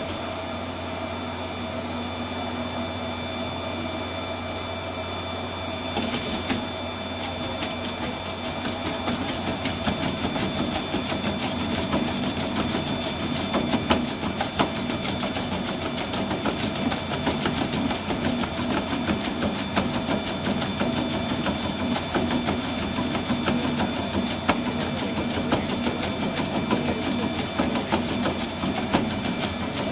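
Motorized treadmill running at speed with a steady motor hum. About six seconds in, a rapid clatter of a small two-legged running robot's feet striking the belt sets in and grows louder.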